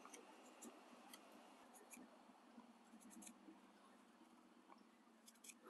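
Faint, scattered scrapes and ticks of a Mora Companion knife taking tiny slicing cuts off the end of a wooden dowel, chamfering the end.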